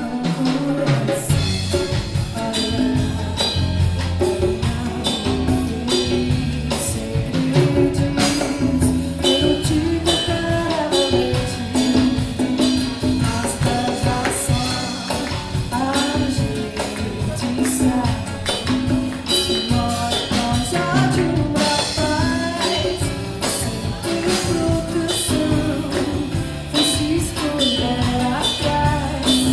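A band playing a Brazilian song: a sung melody over a steady bass line and busy percussion with tambourine and drums keeping an even beat.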